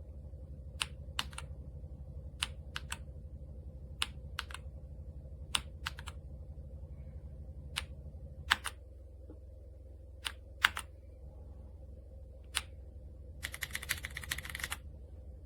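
Keys pressed one at a time on an AJAZZ x Attack Shark X85 gasket-mount mechanical keyboard with white switches and PBT keycaps: about eighteen separate clacks at uneven gaps, then a quick run of rapid typing near the end. A steady low hum lies underneath.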